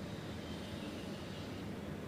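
Steady low background rumble, like distant traffic or an engine, with a faint brief high bird chirp about half a second in.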